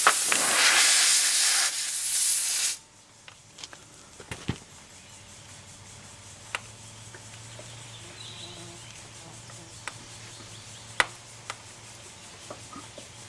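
Air hissing loudly out of a punctured car tire through the reamed hole, cutting off suddenly after about three seconds. A few scattered sharp clicks follow.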